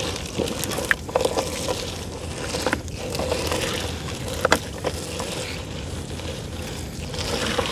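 Steady hum and rumble of a small boat on the river, with water and wind noise and three sharp knocks spaced about two seconds apart.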